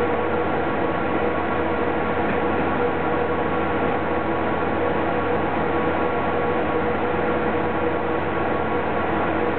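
Steady running noise inside a city bus moving slowly: an even hum with a few steady tones in it.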